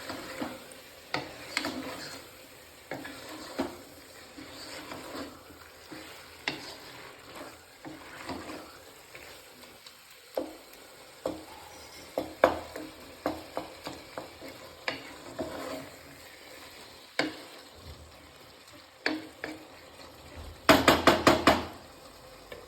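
Spoon stirring cooked meat into a masala in a pan, scraping and clinking against the pan over a faint sizzle. Near the end comes a quick run of about six loud clinks.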